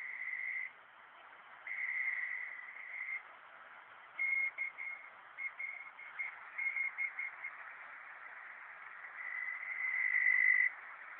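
Shortwave receiver playing a utility data signal over static hiss: a single high tone sent in long pulses of about a second, which the listener takes for a PACTOR II radio modem, broken in the middle by a run of short on-off beeps in Morse code, the letters "KLB". A long tone returns near the end, growing louder.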